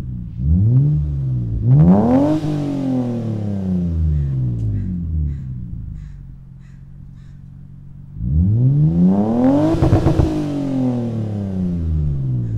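2001 Mitsubishi Eclipse GT's 3.0 V6 being revved through an Invidia N1 catback exhaust while parked. There is a quick blip, then a rev that climbs and falls slowly back to idle, a few seconds of idle, and a second full rev that rises and settles again.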